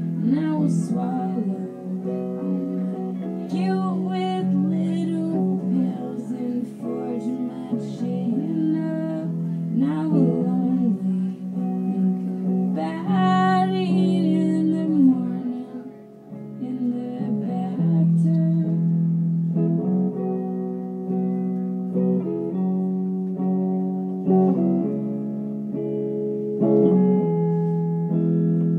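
Live rock song from a singer playing guitar: a sung vocal line over strummed, ringing guitar chords. About halfway through the singing mostly stops and the guitar carries on with held chords.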